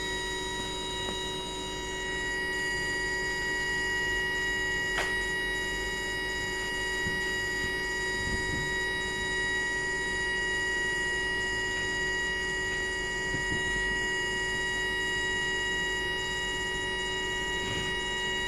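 Induction furnace running under power: a steady electrical whine made of several fixed high pitches. A single faint click comes about five seconds in.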